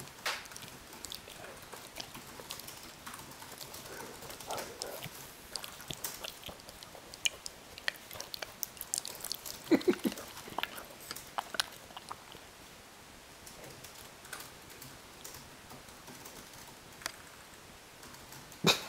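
German shorthaired pointer chewing and mouthing a tennis ball close up: irregular wet clicks and crackles, with a brief low-pitched sound about ten seconds in.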